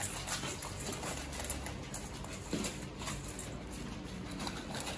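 Siberian husky eating from a steel bowl: irregular clicks, crunches and knocks of chewing and of its muzzle against the bowl.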